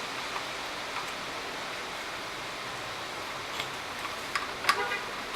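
Light clicks and handling noises of plastic vacuum-case parts and a rubber cord grommet being pressed into place, over a steady background hiss; a short cluster of louder clicks near the end.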